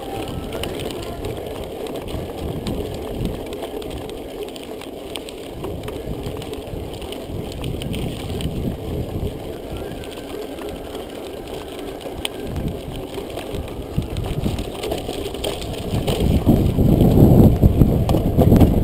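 Mountain bike riding over a rough dirt road: steady tyre rumble with light rattling clicks from the bike, the rumble growing louder in the last few seconds.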